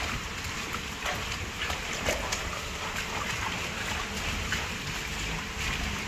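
Steady outdoor background noise: a low rumble under a wash of hiss, with a few faint knocks.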